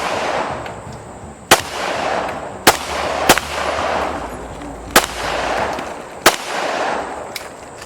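Gunshots fired one at a time at an outdoor range: six shots in about six seconds at uneven spacing, the last one fainter. Each shot trails off in an echo.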